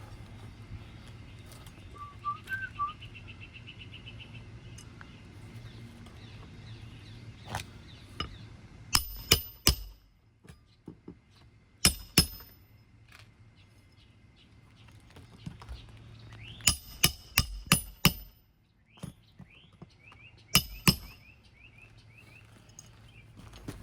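Sharp knocks in quick clusters of two to five, about three a second, from tool work on asphalt roof shingles. Birds chirp in the background.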